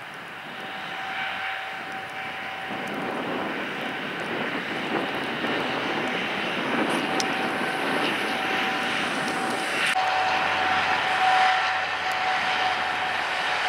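Jet airliner engines running: a steady rushing noise with a thin, even whine over it, growing gradually louder.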